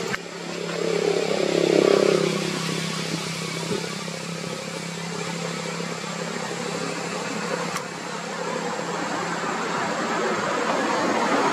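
A motor vehicle's engine passing close by, rising to its loudest about two seconds in and fading, over a steady engine hum and outdoor noise.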